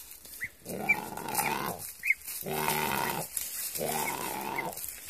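Great curassow calling: a run of low, pitched, growl-like calls, each about a second long and repeated roughly every second and a half, with short high peeps between them.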